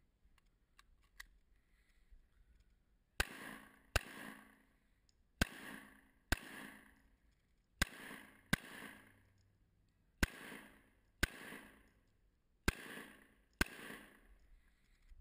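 Ten pistol shots fired as five pairs, the two shots of each pair under a second apart and the pairs a couple of seconds apart, each shot followed by a short echo. A few faint clicks come just before the first pair.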